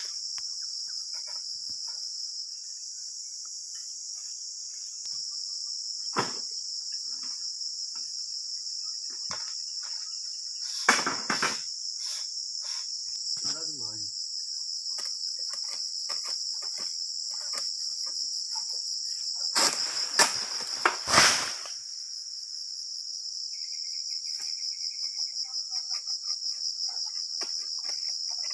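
Steady high-pitched chorus of tropical insects, over scattered knocks and thuds from oil-palm harvesting with a long-pole sickle. The heaviest thuds come in a cluster about two-thirds of the way through.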